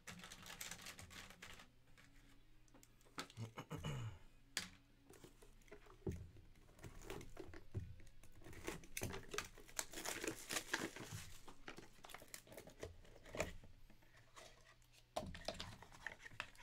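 Plastic shrink-wrap being cut and torn off a sealed trading-card box, crinkling and tearing in irregular bursts, busiest in the middle of the stretch.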